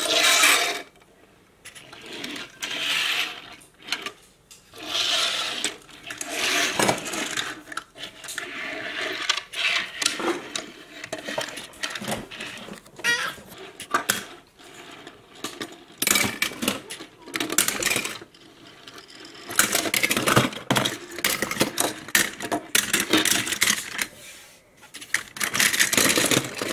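Die-cast metal toy cars clinking and clattering against each other as they are handled and dropped into a plastic bin full of other toy cars, in repeated bursts of small impacts.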